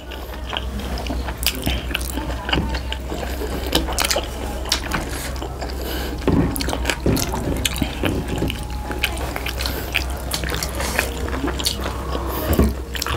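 Close-up eating of pork momo dumplings: chewing and lip smacking with many small wet clicks. A steady low hum runs underneath.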